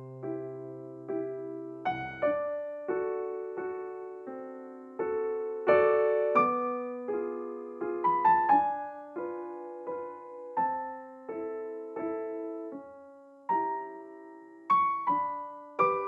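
Background music: a gentle electric piano melody of struck notes, each fading before the next, over an occasional low held bass note.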